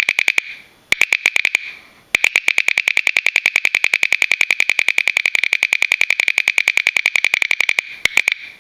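Metal bottle cap held between the teeth, its dented top popping in and back out by itself under steady bite pressure, giving rapid ringing clicks of about eight a second. The run breaks off twice early on and once more near the end.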